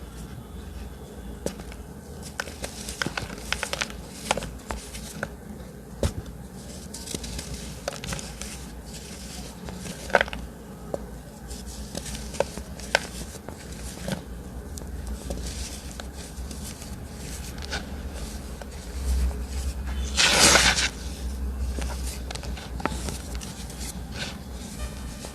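Gym chalk being crushed: scattered sharp crunches and crackles, with one longer, louder crumbling crunch about twenty seconds in.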